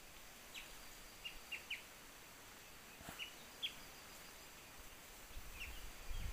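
Faint, short bird chirps, each a quick falling note, about eight of them in scattered pairs and small groups, over quiet forest background noise. A low rumble builds near the end.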